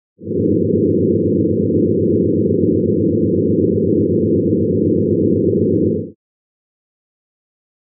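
Sonification of the oscillation frequencies of ten first-generation stars in the globular cluster M4: many steady pure tones sounding together as a dense low chord. It lasts about six seconds, then stops abruptly.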